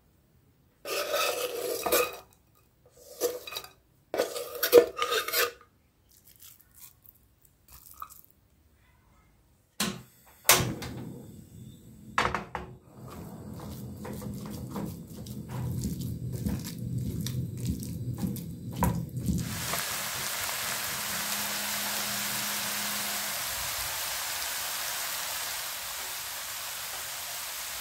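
A few short handling noises, then a silicone spatula knocking, scraping and pressing raw ground meat with chopped onion and garlic in a nonstick frying pan. About two-thirds of the way through, a steady sizzle of the mixture frying starts suddenly and runs on evenly.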